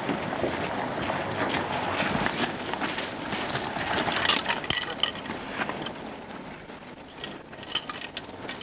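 Metal harness fittings clinking and jingling as a horse is handled in harness beside a horse-drawn wagon, over steady outdoor noise, with a busier run of clinks about four seconds in and a few more near the end.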